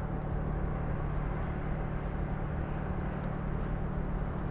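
Steady low engine hum and road rumble inside a moving coach.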